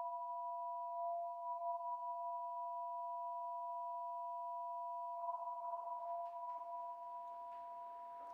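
A sustained electronic drone of two steady pure tones held together. About five seconds in, faint room noise and a few small clicks join beneath it.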